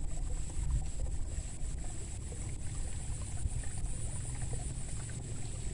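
Steady low rumble of wind buffeting the microphone, with a faint steady high hiss above it.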